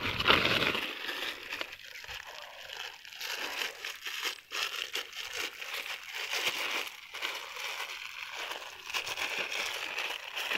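Clear plastic bag crinkling as it is handled, in irregular crackles, loudest in the first second.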